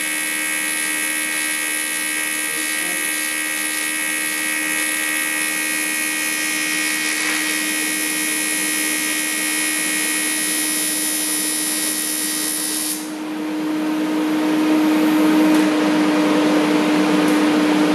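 AC TIG arc on aluminium from a Parweld XTM211Di welder: a steady buzz made of many tones, which cuts off suddenly about thirteen seconds in as the arc is broken. A louder steady hum and hiss carry on after it.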